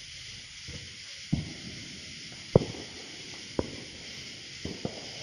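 Firecrackers going off: about five sharp pops at uneven intervals, the loudest about halfway through, over a steady hiss.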